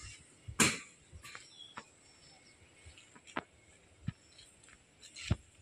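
Scattered footsteps and sandal scuffs on a concrete path, at an uneven pace, with a louder scrape about half a second in.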